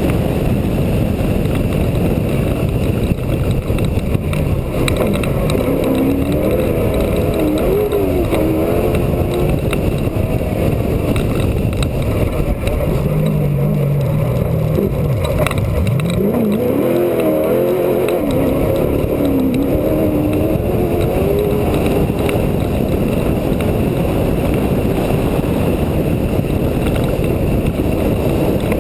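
Off-road race truck running hard at speed, its engine pitch rising and falling as the throttle is worked, under a dense low rumble of wind and terrain on a hood-mounted microphone.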